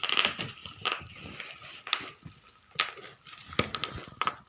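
A parcel of cat food being opened and handled: irregular crackling and crinkling of packaging, with about half a dozen sharper cracks and knocks.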